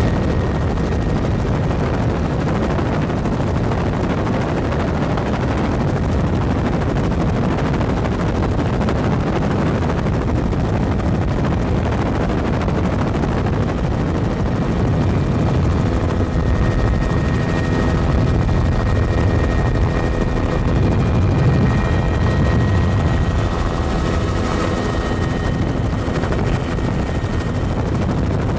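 Helicopter in flight, heard from inside the cabin: loud, steady rotor and engine noise. About halfway through, a set of steady whining tones joins it.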